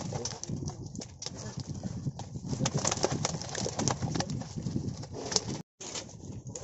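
Live fish flapping and slapping inside a cast net on a plastic tarpaulin, a dense, irregular run of slaps and rustles. The sound cuts out for a moment near the end.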